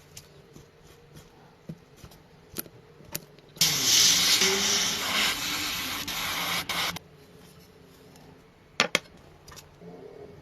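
A hissing spray lasting about three seconds, starting and cutting off suddenly, amid scattered light clicks and taps of handling.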